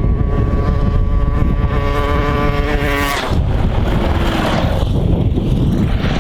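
A small motorbike engine accelerating, its pitch climbing steadily, then cutting off suddenly about three seconds in, with heavy wind noise on the microphone throughout.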